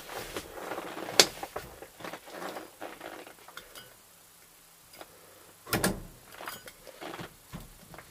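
Horn button on a 1968 Chevrolet C10 steering wheel being pressed again and again, clicking and rattling in its cup as the horn contact is tested with the horn disconnected. A sharp click comes about a second in and a louder burst of knocking near six seconds.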